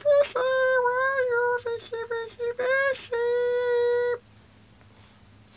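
A man's wordless vocal call, hummed or hooted through a cupped hand: a long held note, a few short choppy notes, then another long steady note that stops about four seconds in.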